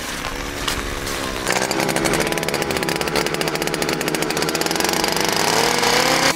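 Gas-powered ice auger engine starting up, then revving hard about a second and a half in with a rapid firing rattle as it drills a hole through the ice. Its pitch climbs near the end.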